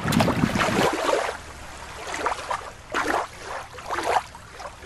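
Shallow river water splashing and trickling at the shoreline, loudest in about the first second, then a few short splashes.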